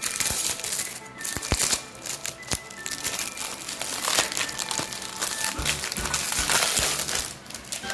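Plastic wrapper of a wafer packet crinkling and crackling as it is handled, with background music.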